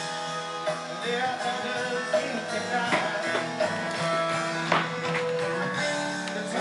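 Background music: guitar-led song with plucked and strummed strings and some singing.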